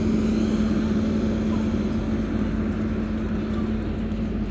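Large diesel engine running steadily: a low, even hum with a constant tone, growing slightly quieter near the end.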